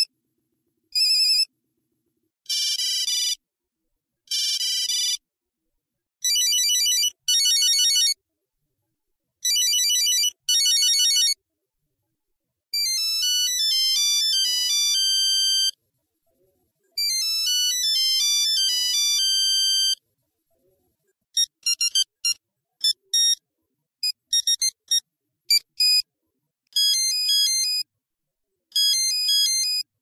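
Retro mobile phone ringtones played one after another: beeping electronic melodies with short silent gaps between them. Several short repeated rings come first, then two longer tunes, then a string of quick short beeps.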